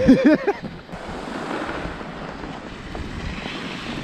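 Skis sliding over groomed snow with a steady hiss, mixed with wind rushing over the camera microphone.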